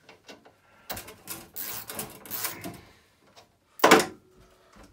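Metal rattling and scraping as a Baxi Neta Tec boiler's expansion vessel is unbolted at its 13 mm nut and worked free of the casing, then one loud knock about four seconds in as the vessel comes loose.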